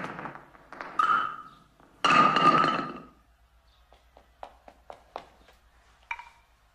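Wooden skittles and a wooden ball knocking and clattering on a stone floor: a few ringing knocks, a louder clatter about two seconds in, then a quick run of light clicks and two ringing taps near the end.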